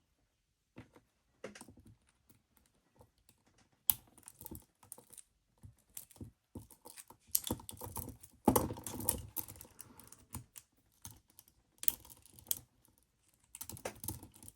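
Peerless 700 handcuffs being worked open: irregular small metallic clicks and rattles, sparse at first, with a sharp louder click about four seconds in and a busier run of clicking and scraping from about eight seconds.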